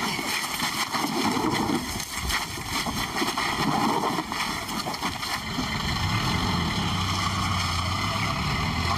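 A motor vehicle's engine running with a rumbling noise, and a steady low engine hum comes in about halfway through.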